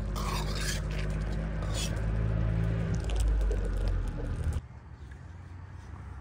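Liquid boiling hard in a large steel karahi, bubbling and hissing, while a spatula scrapes and stirs against the pan, over a steady low rumble. It cuts off abruptly about four and a half seconds in, leaving a much quieter background.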